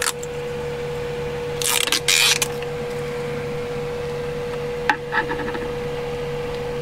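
Rustling and scraping of wiring and plastic dash parts being handled behind a car's dashboard: two short bursts about two seconds in, then a sharp click and light rattling around five seconds in, over a steady hum.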